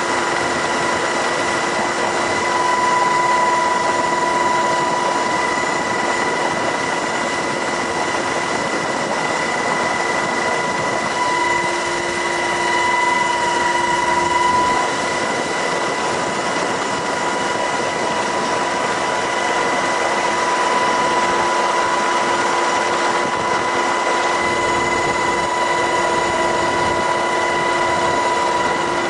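MH-60S Knighthawk helicopter in flight, heard from on board: a loud, steady drone with a constant high whine running through it.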